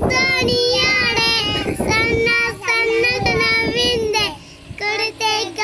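Young girls singing a song together with no instruments, in high voices with long held notes. The singing breaks briefly about four and a half seconds in, then picks up again.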